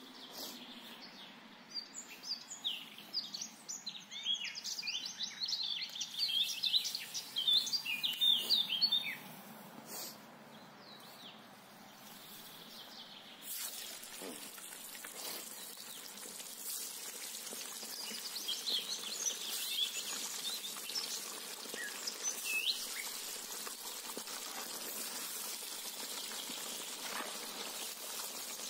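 Small birds chirping repeatedly at first. About halfway through, a steady sizzle starts suddenly as food fries in hot oil in a cast-iron cauldron, with a few more chirps over it.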